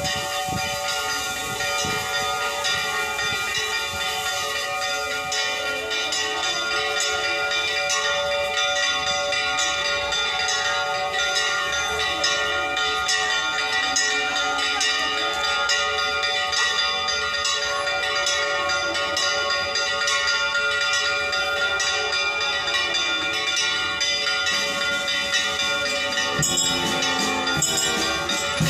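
Church bells ringing continuously, many overlapping strikes with several bell tones ringing on together.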